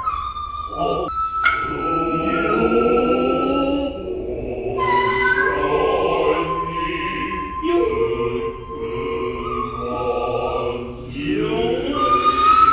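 Noh hayashi music: a nohkan bamboo flute plays held, sliding notes over men's long, drawn-out chanted voices, broken by a few sharp strokes of the tsuzumi hand drums.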